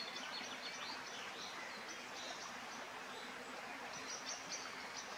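Countryside ambience: small birds chirping and singing in short repeated notes over a steady background hiss. The birdsong is thickest at the start and again near the end.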